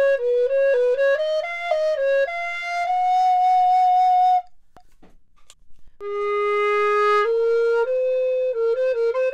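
Resin Ganassi-style alto recorder in G playing a melodic phrase that ends on a long held note. After a short break about four and a half seconds in, it plays another phrase. The first phrase is played on the instrument's low 415 Hz body joint and the second on its high 466 Hz joint, a tone apart.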